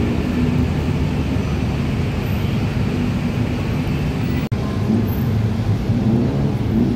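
Dense road traffic at a jammed city intersection: a steady din of car, bus and motorcycle engines. It cuts out for an instant a little past halfway.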